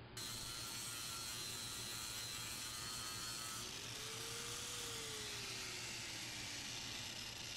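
Electric grinder running against the fibreglass hull, grinding through the gel coat down to bare glass: a steady whine and rasp that starts just after the opening. A lower tone rises and then falls slowly through the middle as the tool works.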